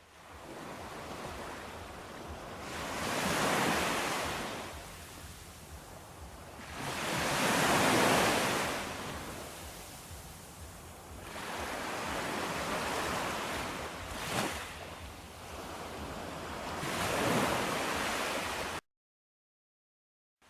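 Ocean surf: waves breaking and washing back in four slow swells of rushing noise, each rising and falling over a few seconds. The sound cuts off abruptly into dead silence near the end.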